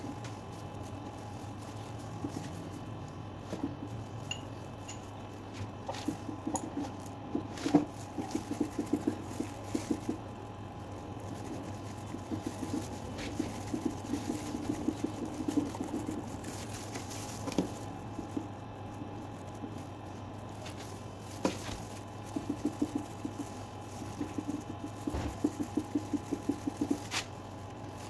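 Runs of quick, soft rubbing strokes on a leather backpack, several a second, over a steady low hum, with a few sharp clicks between the runs.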